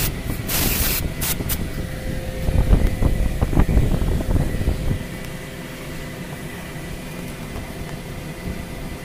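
Aerosol spray can squirted through a straw in short hissing bursts: one lasting under a second, then two quick puffs. A low rumble with a few knocks follows about halfway through, then a steady background hum.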